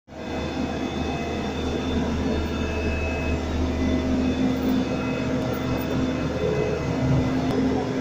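Heavy diesel road-surfacing machinery, a double-drum roller, an asphalt paver and a tipper lorry, running together in a steady low drone while fresh asphalt is laid.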